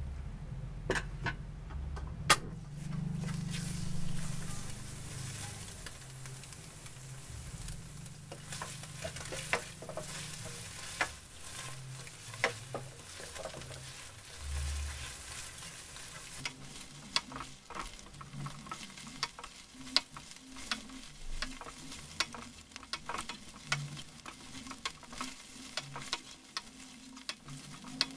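Raw chicken, shrimp and scrambled egg sizzling in hot oil in a stainless steel wok as they are stir-fried, with frequent clicks and scrapes of the spatula against the pan. The meat and shrimp are being sautéed until half cooked.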